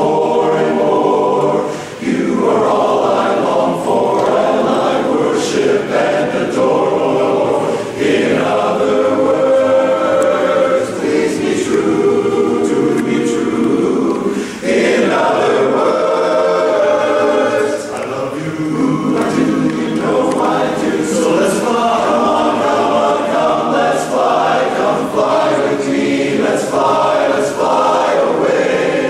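Large men's barbershop chorus singing a cappella in harmony, in long phrases with short breaks between them.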